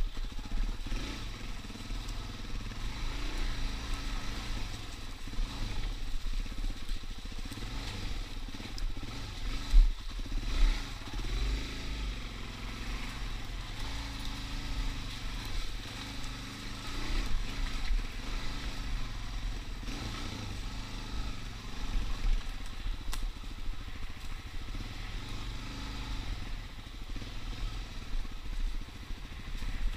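Suzuki DR-Z dirt bike's single-cylinder four-stroke engine running as it is ridden over a rough trail, its note rising and falling with the throttle. There is a sharp thump about ten seconds in.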